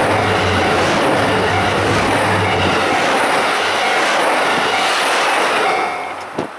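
A KiHa 183 series diesel limited express train passing close at speed: a loud steady rush of wheels on rails with diesel engine drone. It fades about six seconds in as the last car clears, followed by one short knock near the end.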